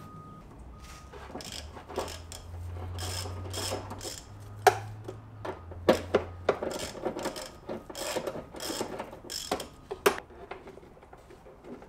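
Irregular clicking and rattling of hand tools and parts being worked by hand in an SUV's engine bay, with bursts of quick clicks, under a low hum that fades out about halfway through.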